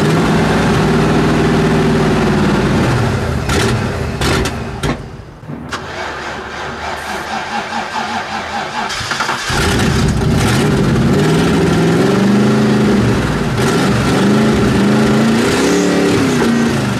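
A demolition trailer-race car's engine runs with revs rising and falling, then stalls about five seconds in. It is cranked on the starter with an uneven pulsing sound, catches again about nine seconds in, and is revved up and down. The engine is struggling to stay running, which the crew puts down to a fuel-delivery problem.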